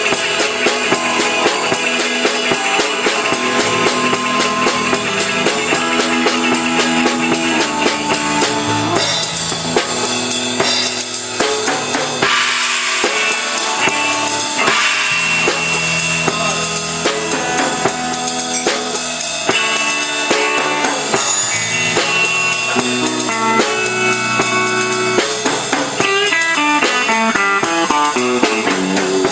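Live rock band playing electric guitars over a drum kit, amplified through a PA, with a fast run of quick guitar notes near the end.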